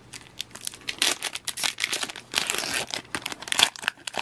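Foil wrapper of a Pokémon trading-card booster pack torn open by hand, crinkling and crackling in quick irregular bursts.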